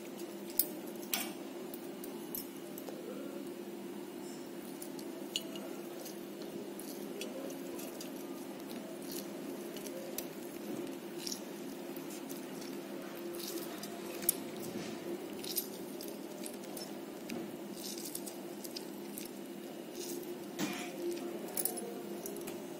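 A lemon squeezed by hand through a perforated steel spoon into a steel pot of rice, with scattered sharp clicks of the spoon against the pot. A steady low hum runs underneath.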